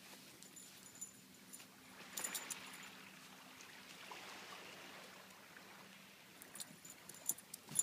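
Faint outdoor rushing noise that swells about two seconds in and eases off again, with a few light metallic jingling clicks near the end.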